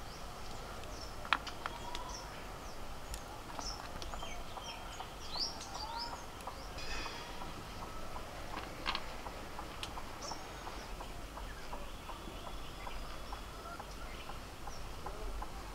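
Small birds chirping: many short, high chirps and glides, with a sharp click about a second in and a few fainter clicks later.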